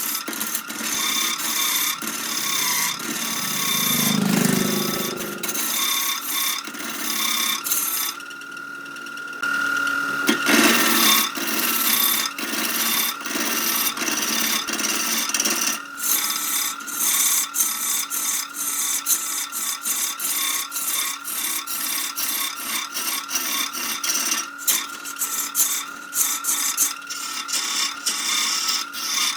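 A turning tool cutting into wood spinning on a lathe: a continuous scraping hiss full of rapid ticks, over the steady high whine of the running lathe. The cutting stops for about a second roughly nine seconds in, while the whine carries on.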